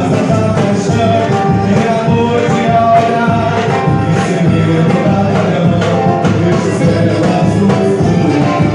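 Music with singing over a steady percussion beat.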